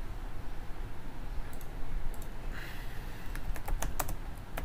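A few scattered clicks, then typing on a computer keyboard from about three seconds in: a quick run of key clicks over a low steady hum.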